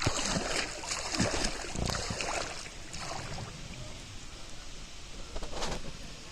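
River water splashing and trickling close by, in irregular small splashes, busiest in the first few seconds with another brief splash near the end.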